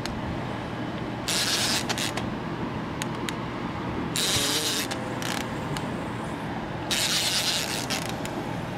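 Spinning reel cranked in short bursts of about a second, roughly every three seconds, its gears whirring as a hooked sturgeon is reeled in on a heavily bent rod.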